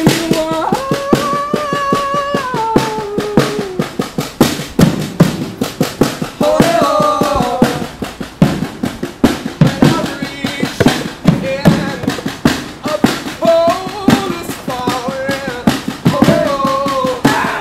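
An acoustic folk band playing a song: acoustic guitars and a small drum struck with bundled rods and a mallet keep a steady beat, under long held sung notes.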